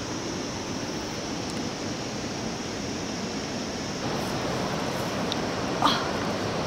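Steady outdoor rushing noise with no distinct pattern, a little louder after about four seconds, with one short sharp sound near the end.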